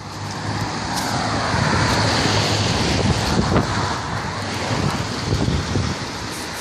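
Road traffic: a vehicle passing, its noise swelling over the first second or two, holding, then easing off near the end.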